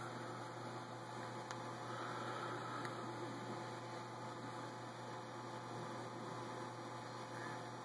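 Steady low electrical hum over a faint hiss: room tone as picked up by the phone's microphone, with two faint ticks about one and a half and three seconds in.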